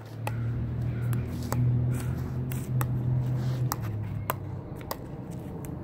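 Pickleball paddles striking the plastic ball in a short dinking rally: a sharp pock about once a second, over a steady low hum.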